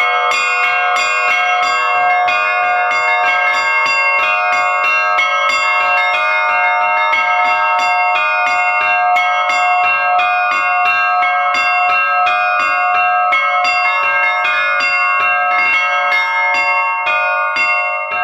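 Orthodox-style bell ringing (zvon) in 3/4 time on a set of bells: a simple, steady rhythmic pattern of clapper strikes, several a second, over continuous ringing.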